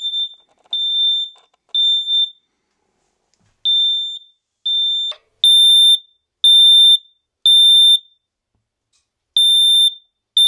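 Kidde smoke alarm sounding its high-pitched beeps, about one a second in runs with short pauses between. It is muffled inside a closed refrigerator at first; about five seconds in the fridge door opens with a brief thud and the beeps become much louder.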